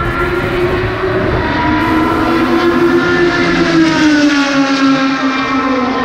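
Racing car engine running at high revs, one high-pitched note that slides down in pitch about four seconds in and then holds steady.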